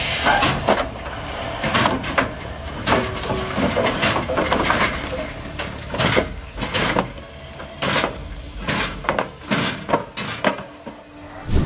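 Concrete pipes sliding and rolling off the back of a flatbed trailer, knocking against each other and hitting the ground in an irregular string of knocks and clatters.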